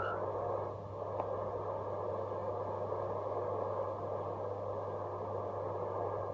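Shortwave static hiss from a tube communications receiver, with a steady low mains hum under it, after the digital-mode transmission has stopped. There is a brief dip about a second in.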